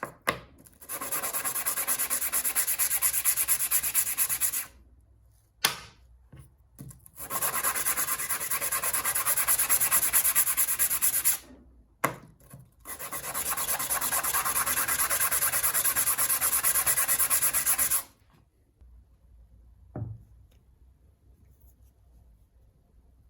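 Abrasive sanding against a workpiece in three long passes of several seconds each, with short breaks and a few clicks between them. After the sanding stops there is a single thump.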